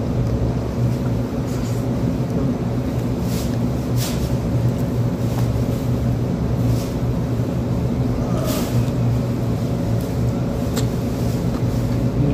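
Steady low mechanical hum, unchanging throughout, with a few short clicks and smacks from someone eating with his hands and chewing.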